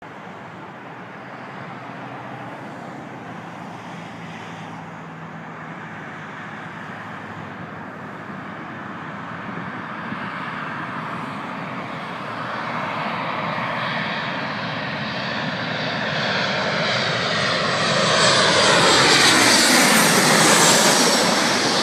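Boeing 737 jet airliner on final approach, its CFM56 turbofans growing steadily louder as it comes in low. It passes overhead near the end, its whine sweeping down in pitch as it goes by.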